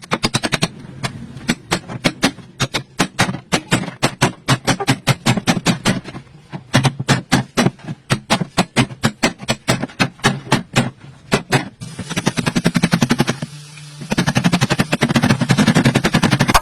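Rapid, repeated sharp blows on metal, about four to five a second, over a steady low hum, typical of a hammer knocking out a dented running board panel. About twelve seconds in the strikes grow denser and noisier.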